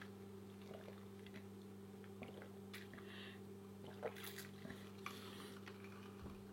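Faint, quiet chewing with a few small mouth and utensil clicks, over a steady low hum.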